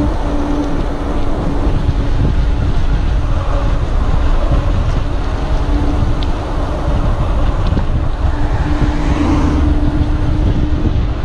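Wind rushing and buffeting over the microphone of a mountain bike descending a paved road at speed, with the rolling noise of the tyres on asphalt and a low hum that comes and goes.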